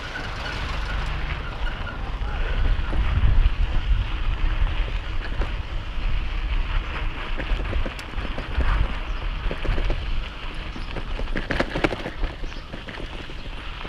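Wind buffeting the microphone: a gusty low rumble and rush that rises and falls, with scattered light clicks and rattles and a brief cluster of them near the end.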